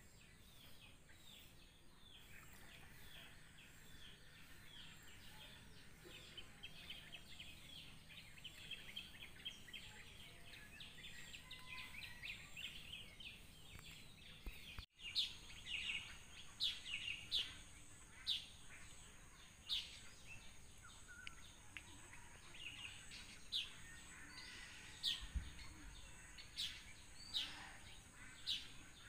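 Birds calling in the morning: a dense chorus of short high chirps, then, after a sudden break about halfway, sharp single calls repeated about once a second.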